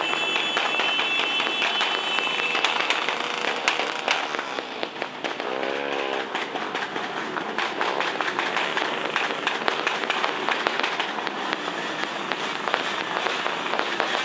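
Many small motorcycles riding past in a dense pack, their engines running together under a constant rapid crackle of pops. A steady high tone sounds for the first two or three seconds, and one engine revs up and back down about six seconds in.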